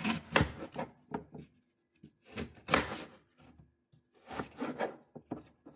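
Knife cutting an apple into small pieces: a handful of separate, irregular cuts and scrapes with short pauses between them.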